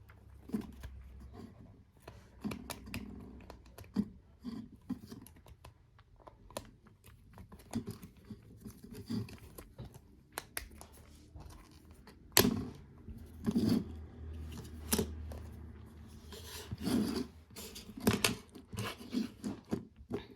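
Small clicks, taps and scrapes from handling a mobile phone and its parts during repair work, with several sharper clicks from about halfway through.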